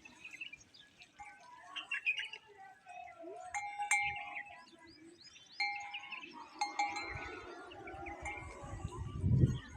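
Metal bells ringing in repeated short clangs, mixed with small bird chirps. A louder low rumble comes about nine seconds in.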